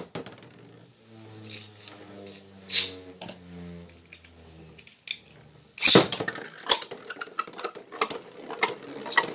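Two Beyblade Burst spinning tops whirring in a plastic stadium, clacking sharply against each other and the stadium walls, with the hardest hit about six seconds in. A faint low hum runs under the first half.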